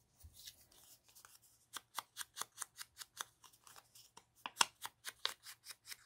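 Ink blending tool worked around the edge of a paper journal card: a rapid run of short scratchy strokes, about five a second, setting in a little under two seconds in after a few scattered ones.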